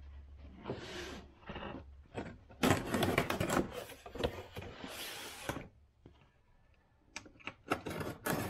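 A cardboard parts box being handled and opened by hand: bursts of rustling and scraping packaging with sharp clicks, loudest in the middle, then a few separate clicks near the end.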